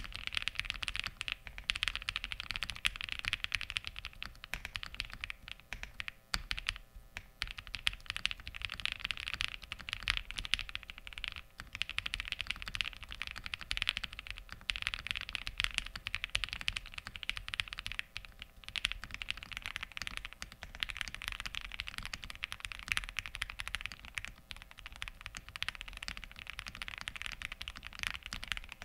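Steady typing on a mechanical keyboard with lubed 'Darling' frankenswitches: linear switches built from Gazzew Bobagum housings and Kailh Pro Burgundy stems, giving deep keystrokes with clear bottom-out clacks. After a short break about 18 seconds in, the typing continues on lubed Gateron Ink linear switches, whose bottom-out is less prominent.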